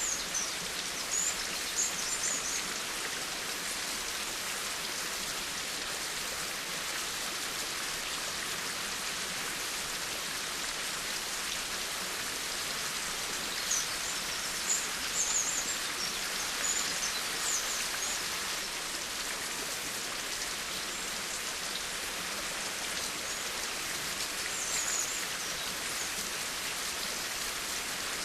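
Steady rain falling, an even, dense patter. A few short high chirps come through near the start, in the middle and near the end.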